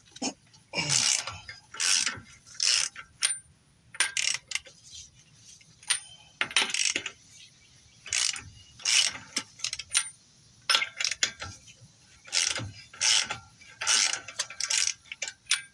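Hand ratchet wrench clicking in repeated short strokes as bolts are turned by hand.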